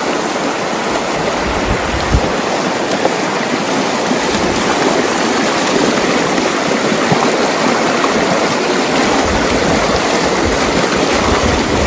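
Shallow, rocky stream rushing and splashing over stones close by, a steady, loud riffle.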